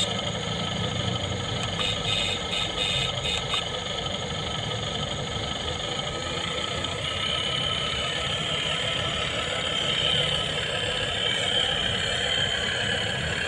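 Radio-controlled model vehicle running, its sound unit playing a steady diesel engine idle. A higher steady whine joins about halfway through.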